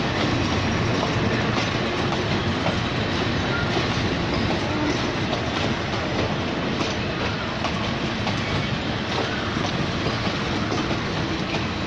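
A passenger train hauled by an Alsthom diesel locomotive rolls past as it pulls out of the station. It makes a steady running noise, with wheels clicking irregularly over the rail joints.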